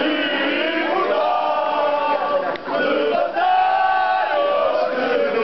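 A crowd of Portuguese football fans, mostly men, singing a supporters' chant together in long held notes, with a short break for breath in the middle.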